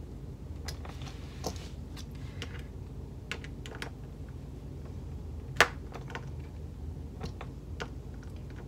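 Small, irregular clicks and taps of a tiny screwdriver and the metal plates of a bag turn lock being handled as the lock is screwed together through a fabric flap, with one sharper click about halfway through.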